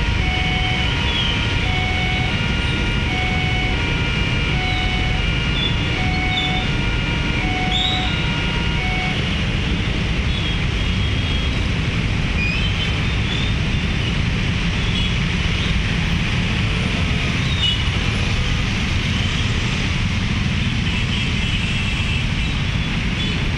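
Railway level-crossing warning alarm sounding a repeating two-tone chime, about one cycle a second, which stops about nine seconds in, as the crossing opens. Under it throughout is the steady din of a crowd of motorbikes and cars waiting and then moving off on a wet road.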